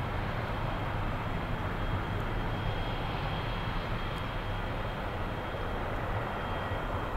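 Twin-engine jet airliner's turbofan engines running as the plane rolls away down the runway: a steady low rumble with a thin, steady high whine.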